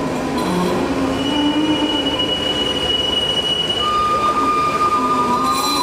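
Tram wheels squealing on a curved track: a steady high squeal that switches to a lower-pitched squeal about four seconds in, over a truck's engine running close by.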